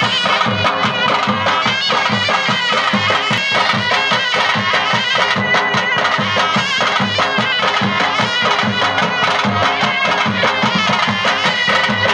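Traditional folk music: a reed pipe plays an ornamented, wavering melody over a steady drum beat.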